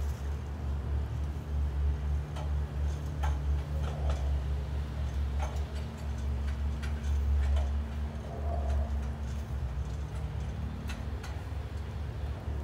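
Boots stepping on the rungs of an aluminum extension ladder as a man climbs with a heavy bundle of roofing shingles: irregular knocks and clicks about once a second, over a steady low rumble.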